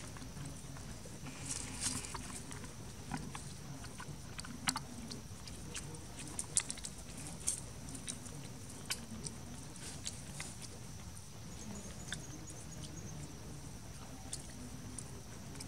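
Outdoor ambience: scattered light clicks and small rustles over a steady high-pitched drone, with a few faint chirps about twelve seconds in.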